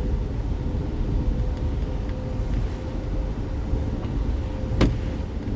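Steady road and tyre rumble of a car driving on a rain-soaked highway, heard from inside the cabin, with a faint steady hum and one short click near the end.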